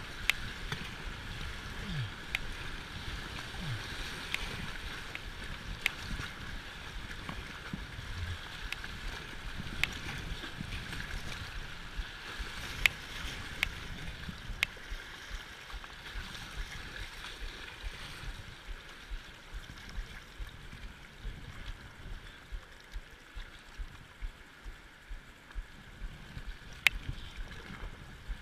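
River water rushing and gurgling around a kayak, with scattered sharp clicks and taps.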